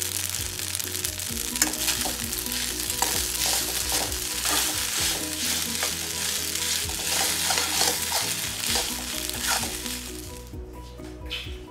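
Pasta sizzling in a hot pan while a metal spoon stirs it, with repeated clicks and scrapes of the spoon against the pan. The sizzling stops about ten and a half seconds in, and background music plays underneath.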